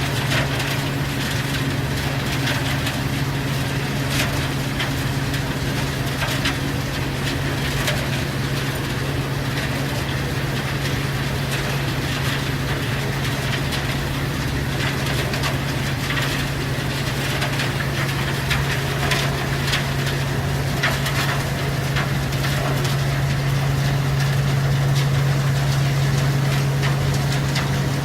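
A mobile screening machine runs with a steady low hum. Over it come scattered knocks and rattles as material passes through it.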